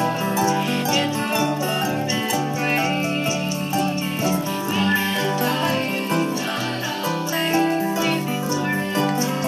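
Acoustic folk song with plucked string instruments strummed in a steady rhythm.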